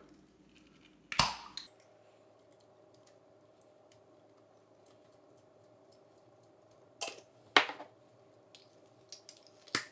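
A few sharp knocks and clacks of a jar of sofrito being handled over a Dutch oven while the sauce is emptied in: one about a second in, two close together around seven seconds in, and lighter clicks near the end. A faint steady hum runs underneath.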